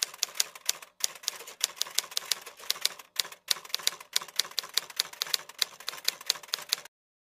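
Typing sound effect: a rapid run of key clicks, about five a second, with two brief pauses, cutting off suddenly near the end.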